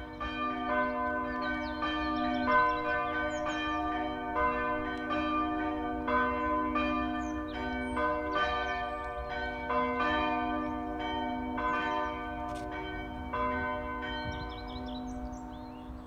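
Several church bells ringing, struck one after another in an uneven pattern, each strike overlapping the long hum of the ones before.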